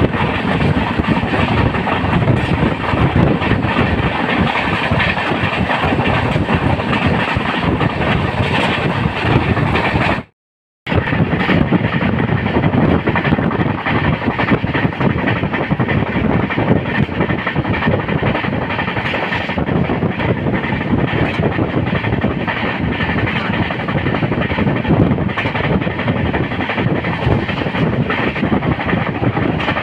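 Janshatabdi Express passenger train running steadily, a continuous rumble with dense rattle and clatter from the wheels on the rails. The sound cuts out completely for about half a second about ten seconds in.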